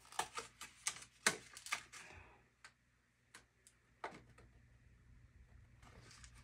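A small item and its packaging being handled: a quick run of faint, sharp clicks and taps in the first two seconds, then a few single clicks and a soft scuffle.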